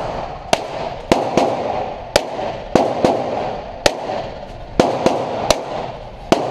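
Handgun shots at an indoor shooting range, about ten sharp cracks at irregular spacing, each ringing on in the range's echo.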